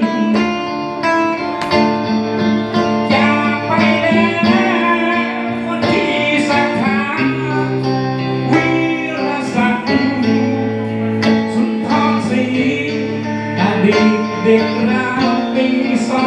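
Live band music: a man singing a slow song into a microphone over guitar accompaniment.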